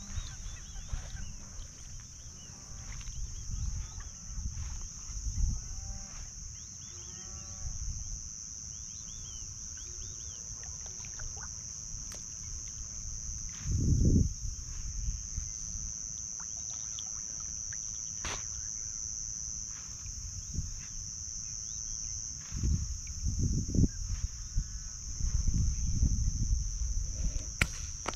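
A steady high-pitched insect chorus, with short rising-and-falling animal calls repeated many times in the first several seconds. Low knocks and swishes of kayak paddling come about halfway through and again near the end.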